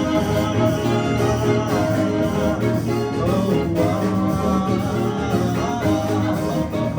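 Live band music in an instrumental passage: melodic lines over a steady groove with percussion, no singing.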